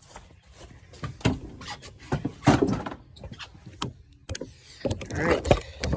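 An irregular series of knocks, clunks and rattles: fishing gear such as rods and a tackle bag being handled and set into a utility vehicle.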